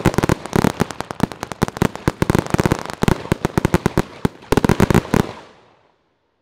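A 1.4G salute firework cake firing a rapid string of sharp bangs, several a second. It stops a little past five seconds in with a short fading crackle as the cake finishes.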